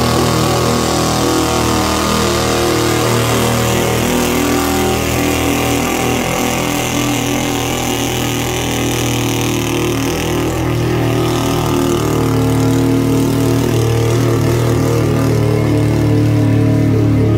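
A pulling vehicle's engine running hard under load as it drags the weight sled down the track. It eases a little around the middle and builds again near the end.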